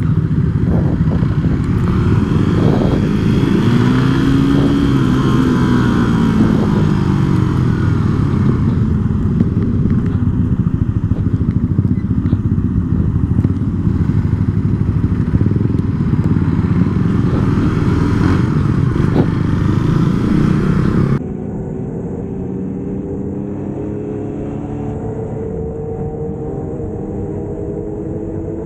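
Motorcycle engine running as the bike rides off and through traffic, its pitch rising and falling with the throttle under heavy wind noise on the microphone. About 21 seconds in the sound cuts to a quieter, cleaner engine note that climbs steadily as the motorcycle accelerates.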